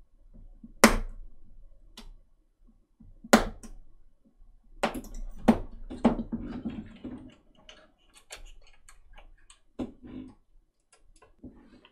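Scattered sharp clicks and knocks from small 3D-printed model parts being handled and pressed into place on a wooden model ship hull on a workbench, with two louder knocks about one and three and a half seconds in.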